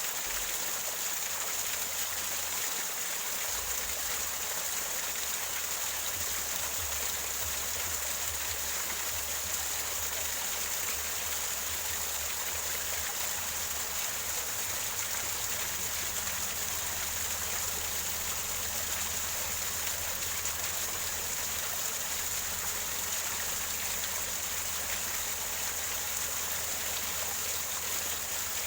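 Small waterfall gurgling over rocks: a steady, unbroken rush of water, with a low rumble that comes and goes underneath.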